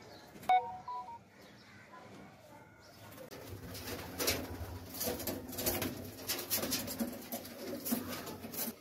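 Domestic pigeons cooing, louder and busier from about three seconds in, with rustling and wing flutters among the coos. A sharp click about half a second in.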